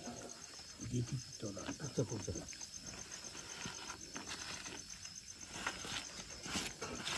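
Crickets chirping in an even, high-pitched run, with faint voices underneath.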